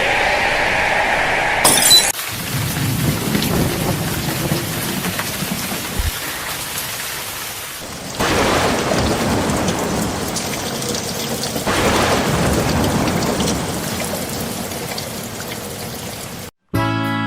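Steady rain with rolling thunder that swells and fades several times. It cuts off suddenly just before the end, where music begins.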